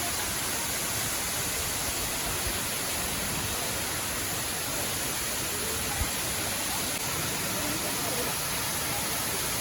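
Waterfall with steady, even rushing water noise, several small falls plunging into one pool. A brief low bump is heard about six seconds in.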